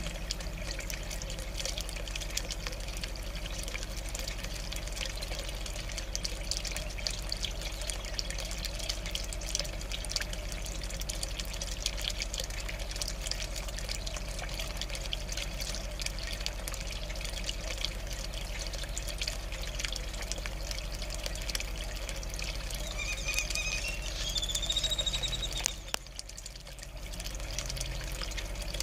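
Steady trickle of running water, full of fine crackles, over a low steady hum. Near the end comes a short whistle-like sound that rises in pitch.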